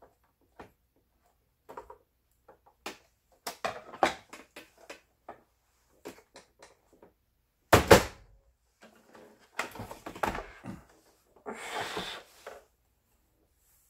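Clicks and knocks of a Singer 7466 sewing machine's plastic body shells being fitted together and handled, with one loud knock about eight seconds in and a stretch of scraping and rubbing near the end.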